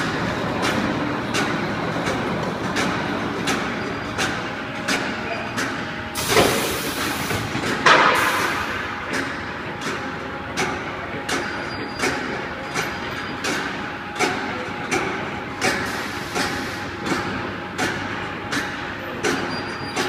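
Steel bar processing line running: a steady machine noise with a regular metallic knock about every 0.7 seconds as it cycles. A short burst of hiss comes about six seconds in, and a loud clank about two seconds later.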